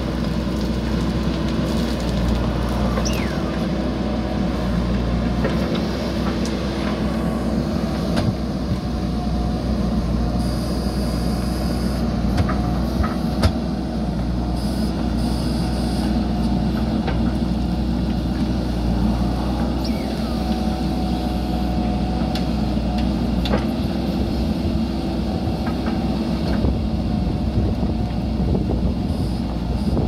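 JCB backhoe loader's diesel engine running steadily under working load as the backhoe digs a trench, with a few sharp knocks scattered through.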